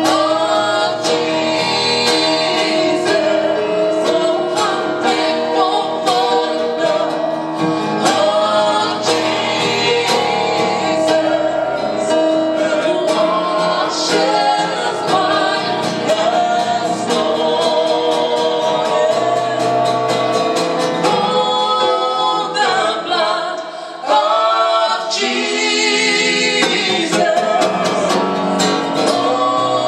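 Worship song: singing voices over instrumental backing, which drops away briefly about three-quarters of the way through.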